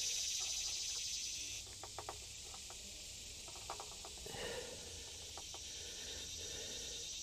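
Faint light clicks and taps of small metal carburetor parts being handled and fitted, a few scattered through, over a steady high-pitched hiss that drops off about a second and a half in.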